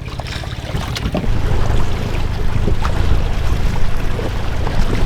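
Dinghy outboard motor running, with wind buffeting the microphone; it gets louder about a second in.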